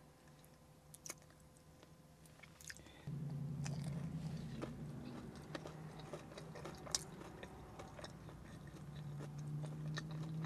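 A person chewing a mouthful of corn dog dipped in ranch, with small crunches and wet mouth clicks. A low steady hum comes in about three seconds in and stays.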